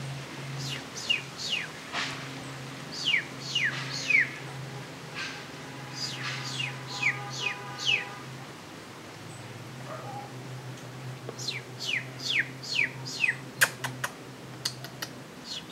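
Runs of three to five high, bird-like peeping calls, each falling quickly in pitch, repeated several times over a steady low hum.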